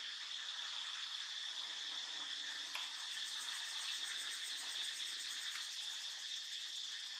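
Steady chorus of insects in tropical forest: a continuous high buzz with a fast, fine pulse and an even level, with a couple of faint ticks.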